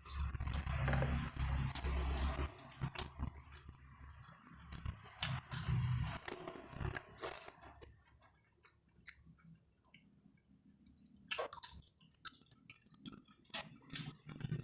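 A person chewing food close to the microphone, eating fried noodles and crackers, in two bouts of chewing followed by a quieter stretch with scattered sharp mouth clicks near the end.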